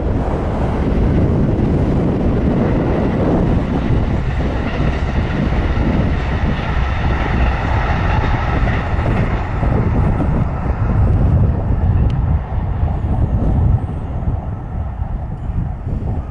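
A train on the Hokuriku Main Line running past, a steady rumble with a faint whine through the middle, the sound dropping off about two seconds before the end.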